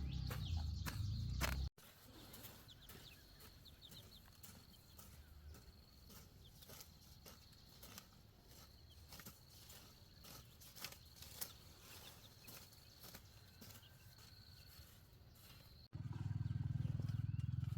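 Outdoor farm ambience. A low rumble fills the first two seconds and the last two. Between them is a quieter stretch of scattered light clicks with a faint, steady, high tone.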